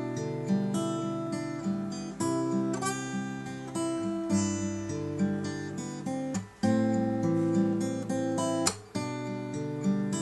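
Takamine ETN20C nylon-string acoustic-electric guitar being played, strummed and plucked chords changing about every second, with short breaks between phrases near the middle and near the end.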